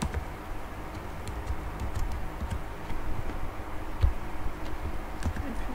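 A few separate keystrokes on a computer keyboard, single clicks about a second apart, over a steady low rumble.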